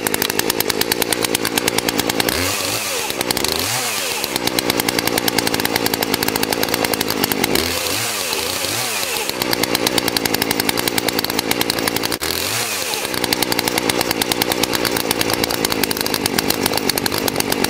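Poulan Pro 4218A two-stroke chainsaw idling steadily to warm up after a cold start, taken off high idle.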